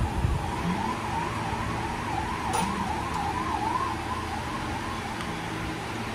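A siren wailing in a fast up-and-down warble, fading out about five seconds in. A single sharp click sounds partway through.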